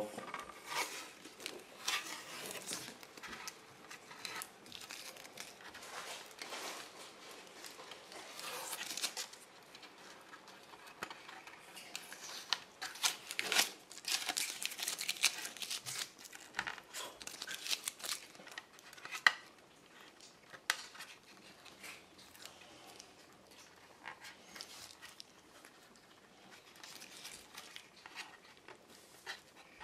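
Masking tape and paper masks being peeled off a painted plastic model aircraft and balled up by hand: intermittent crinkling and tearing rustles with small sharp clicks.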